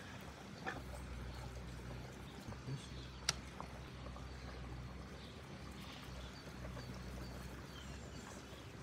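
Quiet sounds of hands working a wooden spice box: fingers pinching salt, ground spice and dried herbs and sprinkling them into a steaming pot. There are a few light clicks and one sharp tick about three seconds in, over a steady low hum.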